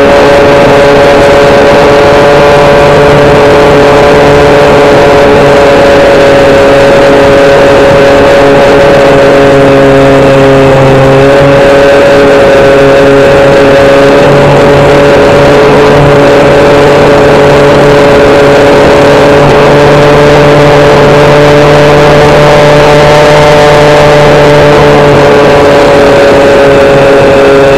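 Electric motor and propeller of an RC FPV plane heard from the onboard camera in flight: a steady, very loud whine made of several fixed pitches that drift only slightly, as the throttle stays nearly constant.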